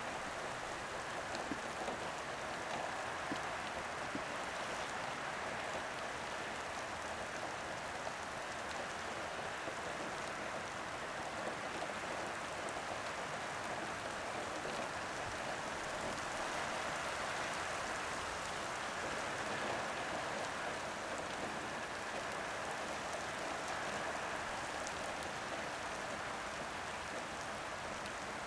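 Heavy rain falling steadily, with a dense hiss of drops hitting surfaces and running water.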